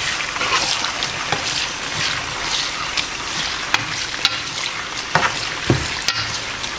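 Chicken breast pieces and sliced onions sizzling in hot oil in a nonstick frying pan as a spoon stirs them. The spoon knocks and scrapes against the pan a few times, mostly in the second half.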